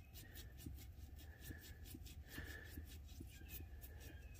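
Near silence with faint scratchy clicks, about three a second, as the disconnected upper steering shaft universal joint is worked back and forth by hand. The joint is stiff and sticks, and the owner suspects it of causing the hard steering.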